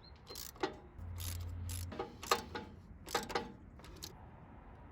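Hand tools clicking and knocking on metal while a radiator hose clamp screw is tightened, with about half a dozen separate sharp clicks and a short low hum about a second in.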